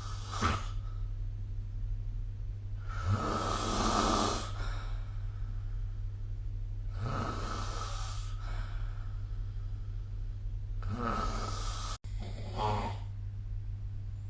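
A sleeping person snoring, one rasping snore about every four seconds, over a steady low hum.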